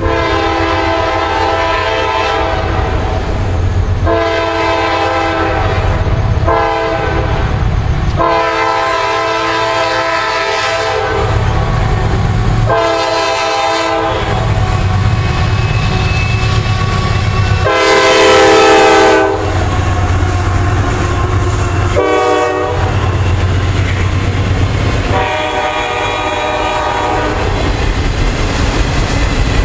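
Freight locomotive air horn sounding a string of about eight blasts, long and short, the loudest about two-thirds of the way through, over the steady low rumble of the passing diesel train. Near the end the autorack cars roll by with their wheels clattering on the rails.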